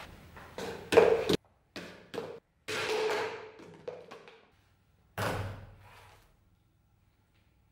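Rapier blade striking an empty plastic water bottle and knocking it over onto the tabletop: a quick series of sharp knocks and thuds, the loudest about a second in, several stopping abruptly.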